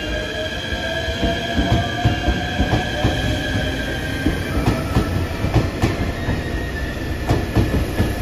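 JR Shikoku 8000 series limited-express electric train pulling out along the platform. A whine rises slowly in pitch as it gathers speed, and the wheels click over rail joints, more often in the second half.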